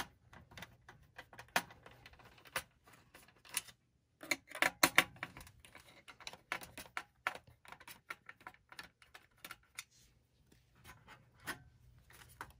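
Irregular clicks, rattles and scrapes of plastic and sheet-metal parts being handled while a DVD player is taken apart, with a burst of louder clicks about a third of the way in.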